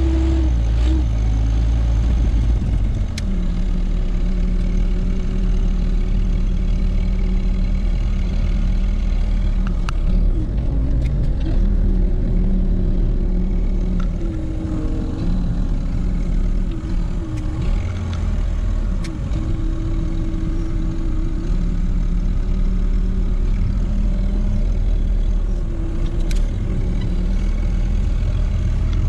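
Tractor engine running, heard from inside the cab, its pitch shifting up and down several times as engine speed changes under snow-clearing work. A few sharp clicks or clanks come through over it.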